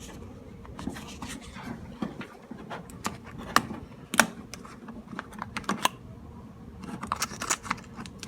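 Scattered sharp clicks and knocks from handling a plastic funnel and oil bottles at the engine's oil filler, with two louder knocks near the middle and a quick run of clicks near the end.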